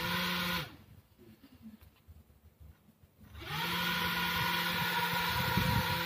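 Small battery-powered DC fan motor spinning its blades. It whirs for about half a second and cuts off. About three and a half seconds in it starts again, quickly rising in pitch, and runs on with a steady whir.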